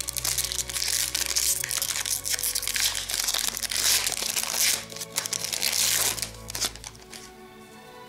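The foil wrapper of an Upper Deck Series One hockey card pack being opened and crumpled by hand: a dense, crackling crinkle that dies away about seven seconds in. Background music plays underneath.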